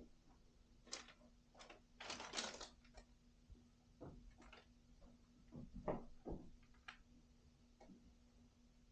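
Near silence: quiet room tone with a faint steady hum and scattered soft taps and rustles, the busiest stretch about two seconds in.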